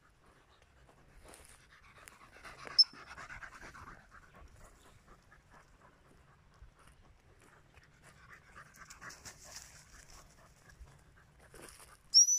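Springer spaniel panting as it runs and pushes through dry brush. There is a sharp snap about three seconds in, and a short, high whistle blast right at the end.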